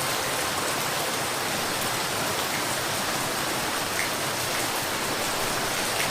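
Steady, even rainfall, with a few faint drop ticks standing out here and there.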